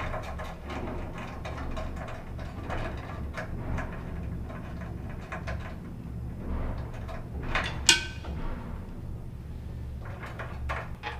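Small metallic clicks and scrapes as screws are loosened from a bus duct joint's sheet-metal cover with a hand tool, with one sharp metal clack about eight seconds in. A steady low hum runs underneath.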